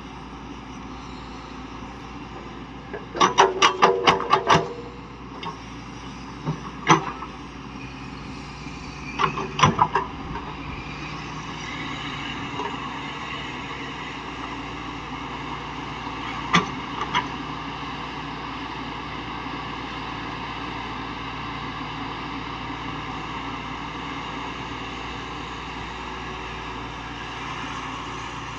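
Heavy earthmoving machinery engine running steadily. About three seconds in comes a quick run of sharp knocks, roughly six a second, and a few single knocks follow later.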